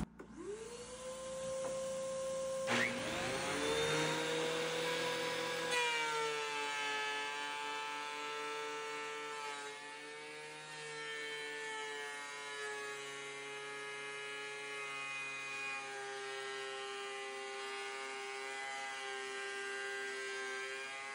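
A DeWalt benchtop thickness planer and a dust-extraction vacuum spin up a few seconds apart, then run with a steady whine while a board is fed. The pitch dips slightly about ten seconds in. The planer's feed rollers, which the owners suspect are dirty, are barely pulling the board through and take almost nothing off.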